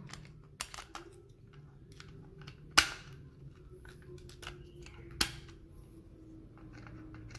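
Hard plastic parts of a Transformers Astrotrain figure's storage box clicking and rattling as they are handled and pressed together, with two sharp snaps, one a little under three seconds in and one a little over five seconds in.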